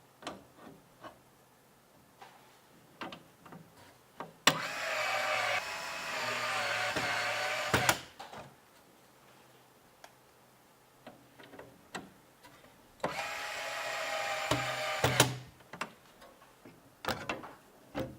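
A small electric motor runs twice, for about three seconds each time, its pitch shifting partway through the first run. Short clicks and taps of hardware being handled come before, between and after the runs.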